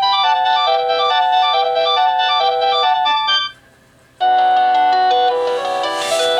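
Panasonic KX-TG1033S cordless phone handset playing a ringtone melody of quick notes through its speaker. It cuts off about three and a half seconds in as the selection moves on, and after a short pause a different ringtone starts, with longer held notes.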